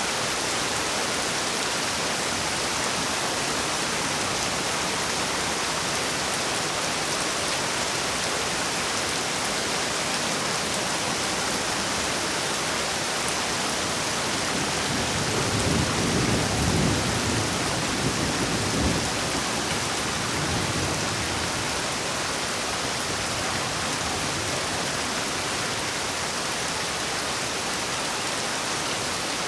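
Heavy rain falling steadily, with a roll of thunder rumbling low about halfway through, swelling for a few seconds and dying away.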